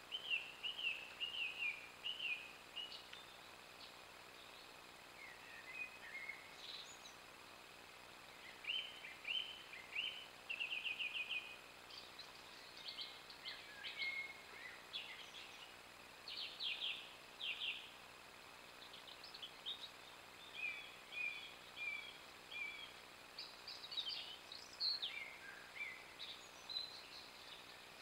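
Thrushes singing in the woodland: clear whistled phrases, many of them short notes repeated in quick runs, with brief pauses between phrases, over a faint steady background hiss.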